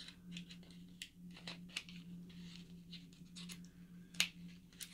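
Faint, scattered clicks and scratches of a small lip liner package being handled and worked open by hand.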